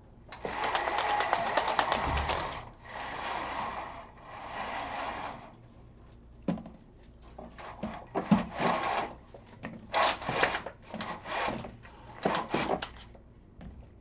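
Horizontal venetian blind worked by its lift cord: a long rattling pull as the slats stack up, two shorter pulls, then a run of short jerky rattles and clacks as the blind is let back down.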